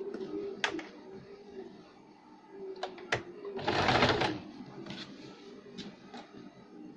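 Electric domestic sewing machine run in one short burst of stitching about four seconds in, with scattered light clicks before and after as the fabric is set under the presser foot.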